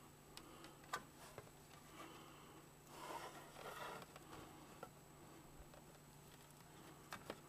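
Near silence, broken by a few faint clicks and a soft rustle from hands handling a clear plastic case and a fine-tip marker. The loudest click comes about a second in, a brief rustle follows a few seconds later, and two small clicks come near the end.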